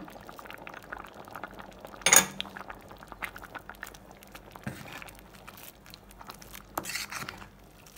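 Steel spoon stirring a simmering horse-gram stew in a steel pot: a sharp ringing clink of spoon on pot about two seconds in, another near the end, and scattered small ticks and pops of the bubbling stew in between.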